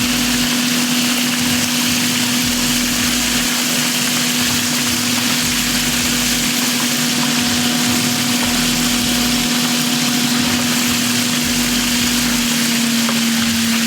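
Chicken frying in hot oil during its second fry, a steady sizzle over a constant low hum.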